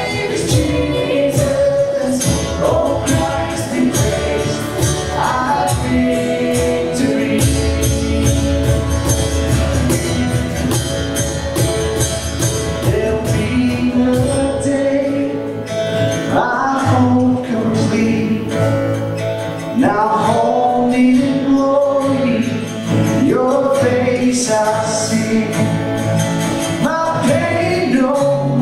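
Worship band playing a praise song, with singing over a steady percussion beat.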